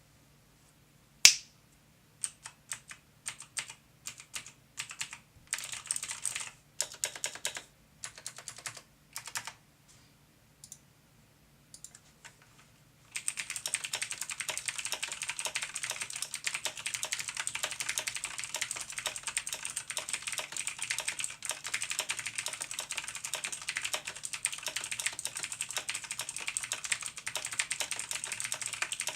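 Razer BlackWidow Chroma mechanical keyboard with clicky, high-pitched Kailh Razer Green switches: a sharp loud click about a second in, then scattered single key presses and short runs of clicks. About halfway through it turns into steady fast typing.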